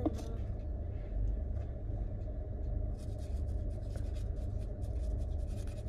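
Dry crackling and rustling of a rolling paper being rolled and packed between the fingers, in quick short scratches that grow busier from about three seconds in, over the steady low rumble of a car cabin.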